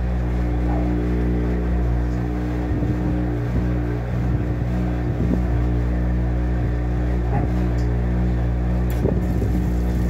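Top-loading washing machine with a central agitator running: a steady low motor hum, with several knocks and clunks about three to five seconds in and again near nine seconds.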